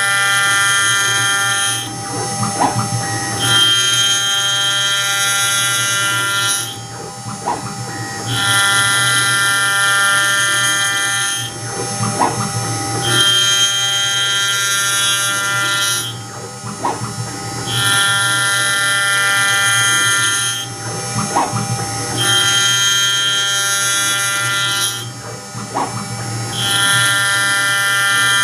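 CNC spindle and small HSS ballnose end mill cutting aluminium on a finishing pass across a concave dish, a high-pitched whine rich in overtones. The whine swells loud for about three seconds and eases for a second or two, over and over about every five seconds as the cutter sweeps back and forth, with a short click once in each cycle.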